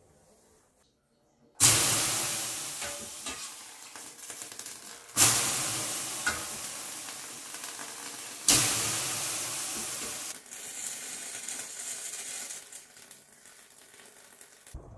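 Water thrown three times onto the hot stones of a sauna stove, each throw hitting with a sudden loud hiss of steam (löyly) that fades over a few seconds, the last one trailing off longer.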